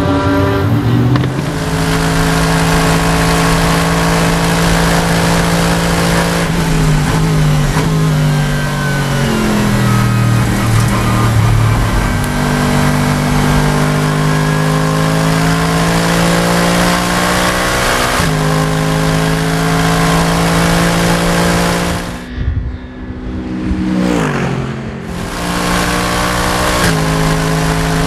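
Mercedes SLS AMG GT3's 6.2-litre V8 running hard on track, holding a steady high note for long stretches, with gear changes stepping the pitch and a few falling runs as it downshifts. About three-quarters of the way through it briefly goes much quieter, as when the throttle is lifted, then pulls again.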